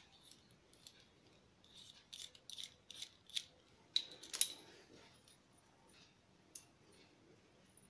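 A scatter of faint, sharp clicks and light rattles from small metal parts and tools being handled, loudest about four seconds in.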